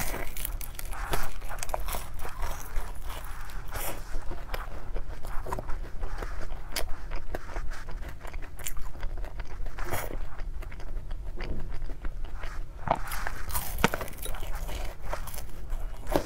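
Close-miked biting and chewing of a chocolate-coated pastry roll topped with crispy chocolate balls: irregular crisp crunches and crackles of the flaky pastry and coating as she bites and chews.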